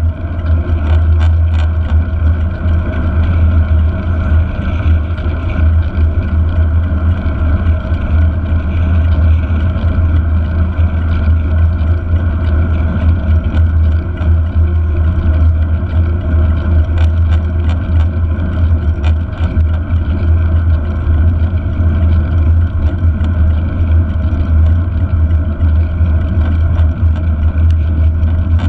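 Steady wind rumble on a bike-mounted GoPro's microphone, with the mountain bike rolling along tarmac at race pace.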